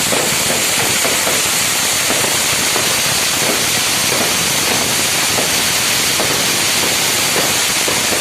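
Fireworks and firecrackers crackling continuously, a dense steady hiss of many small pops with no single large bang standing out.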